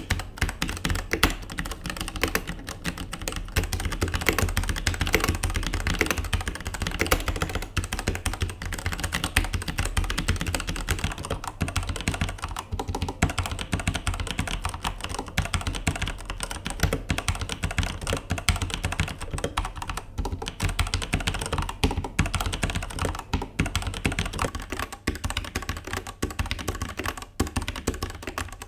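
Fast, continuous typing on mechanical keyboards with non-clicky switches, comparing the 1STPLAYER MK8 Lang's Gateron yellow switches with red switches: a dense clatter of keystrokes. The yellow switches are described as not clicky and a little heavier than the reds.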